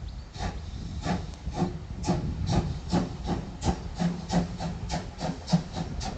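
Steam locomotive exhaust chuffing in a regular beat that quickens from under two to about three beats a second as it gathers speed, over a low rumble.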